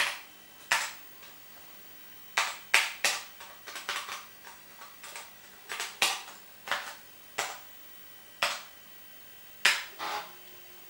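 Keys on a computer keyboard being pressed one at a time: a string of sharp, irregular clicks, some coming in quick pairs.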